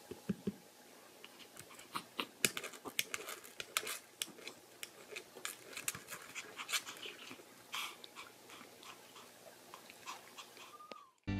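Small dogs, a Pomeranian and a toy poodle, panting with irregular sharp clicks and taps of their paws and claws on a wooden table top. A short high squeak near the end, then a sudden cut.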